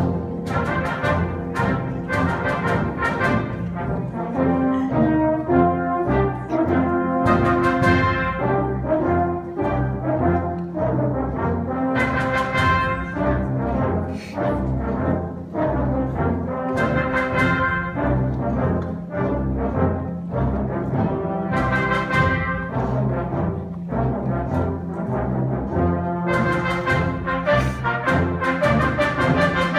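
Live brass ensemble playing a triumphal march, full chords with sharp accented attacks.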